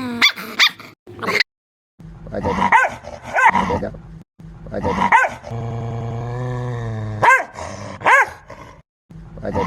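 A dog barking in a menacing way, with single sharp barks coming in short groups. About halfway through, a long low growl runs for nearly two seconds before the barking resumes.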